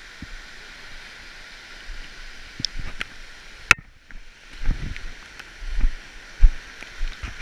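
Steady rush of a mountain stream running close by. A sharp click comes a little under four seconds in, and several dull low thumps follow in the second half.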